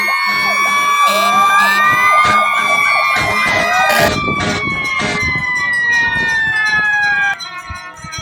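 Several emergency-vehicle sirens wailing at once, their pitches rising and falling over one another, with a steady low tone for the first two seconds and many sharp clanks mixed in. The din drops away abruptly about seven seconds in.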